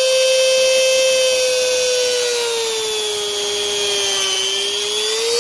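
High-speed rotary grinder cutting metal inside a car's exhaust pipe: a steady high whine whose pitch sags in the middle of the cut as the wheel bites into the metal, then climbs back near the end.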